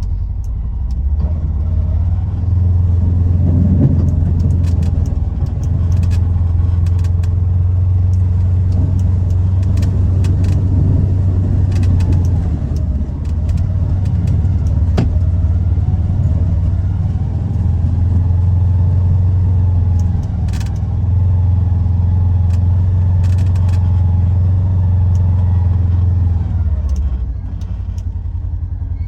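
Polaris Ranger XP 1000 UTV's twin-cylinder engine running steadily under way, easing off briefly a few times, with scattered clicks and knocks over it.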